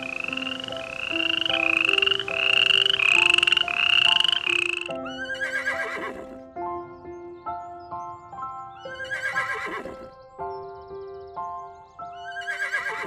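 Background music of held notes under animal calls. For the first five seconds there is a dense chorus of rapid, rising, repeated calls. Then come three long, quavering calls that fall in pitch, a few seconds apart.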